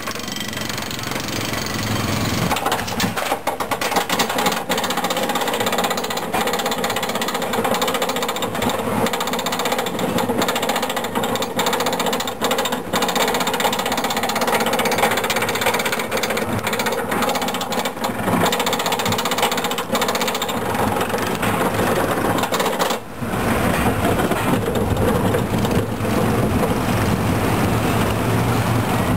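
Steel roller coaster train being hauled up its chain lift hill, the lift clattering rapidly and steadily. About three-quarters of the way through the clatter stops as the train leaves the lift, and a smoother rumble of wheels on the track takes over.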